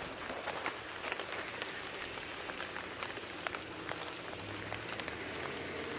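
Steady rain hissing down, with scattered drops ticking sharply close by. About four and a half seconds in, a faint low steady hum joins it, the engine of an approaching vehicle.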